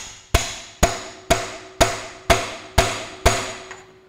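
Hammer blows on a socket used as a drift, tapping the crankshaft timing sprocket onto a Ferguson TEA20 crankshaft: seven even, ringing metal strikes about two a second, stopping a little over three seconds in as the sprocket seats home.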